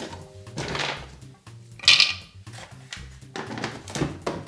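Whole almonds tipped from a jar clattering into a plastic blender cup, loudest in one sharp rattle about two seconds in, amid the smaller knocks of the jar lid being handled.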